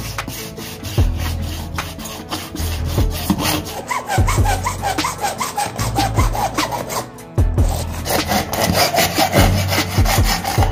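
Hacksaw cutting through a white uPVC pipe end cap in quick, even back-and-forth strokes, the blade scraping through the plastic.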